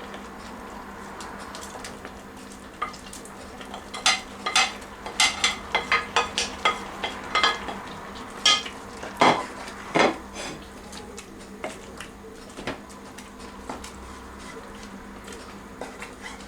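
A cooking utensil knocking and scraping against a pot of okra soup as it is stirred, with a quick run of clinks in the middle and a few scattered ones near the end, over a steady low hiss.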